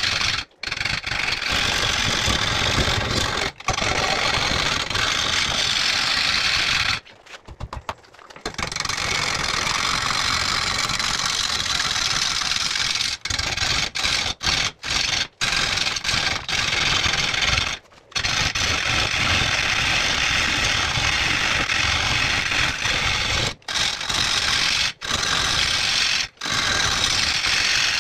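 Bowl gouge cutting into a large blue pine bowl blank spinning on a wood lathe: a steady, loud scraping cut noise over the lathe's rumble. It breaks off suddenly for a moment several times, longest about seven seconds in.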